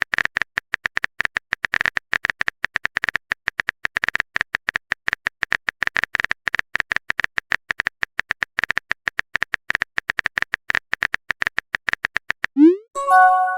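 Rapid, irregular clicking of a phone-keyboard typing sound effect, about ten taps a second. Near the end it stops for a short rising swoosh and a brief chime.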